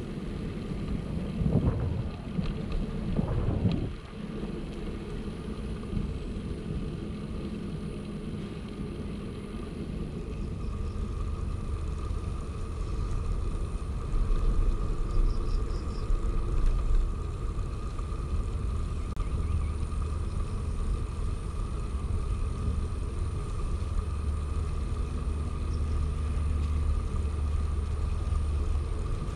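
Ride noise from a moving bicycle: a steady low rumble of tyres and wind on the microphone. A faint steady whine runs under it, and there are two brief louder swells in the first few seconds. The rumble grows heavier about a third of the way in.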